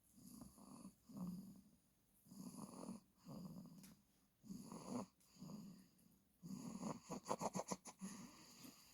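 Snoring: a sleeper's breaths drawn in and out in pairs about every two seconds. Near the end comes a fast fluttering rattle, the loudest part.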